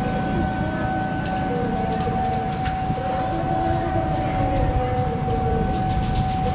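Diesel locomotive at the head of a passenger train, running with a steady low rumble as it approaches slowly, with scattered clicks and a steady high-pitched tone throughout.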